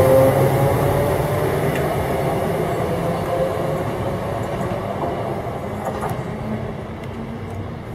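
ScotRail electric multiple unit drawing away from the platform. Its motor whine rises over the first second, then its running noise fades steadily as it moves off.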